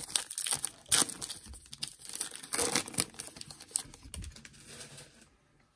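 Foil trading-card pack wrapper being torn open and crinkled by hand: a run of irregular crackles with sharp tears about a second in and again about three seconds in, dying away near the end.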